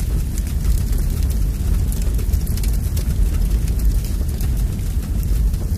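Large fire burning: a steady deep rumble with frequent sharp crackles.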